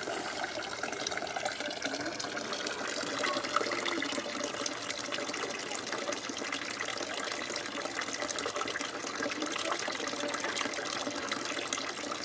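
Garden water fountain running steadily: a stream of water from a bamboo spout pouring into an upright bamboo tube in a stone basin.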